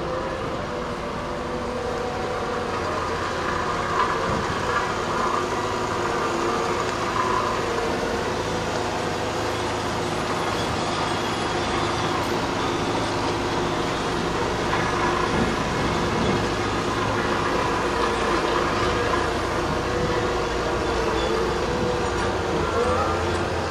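CAT M314F wheeled excavator's diesel engine running steadily as it drives slowly over gravel, towing a loaded dump trailer.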